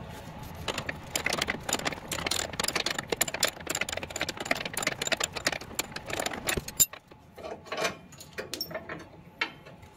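Wrench loosening a stabilizer link nut while an allen key holds the stud: a run of rapid metal clicking for about six seconds, stopping suddenly, then a few scattered clicks.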